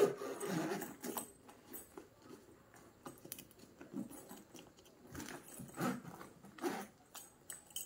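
Handling of a new faux-leather round shoulder bag and its plastic wrapping: rustling, scraping and small clicks as it is turned over and opened, with a sharp click at the start and a few louder rustles about five to seven seconds in.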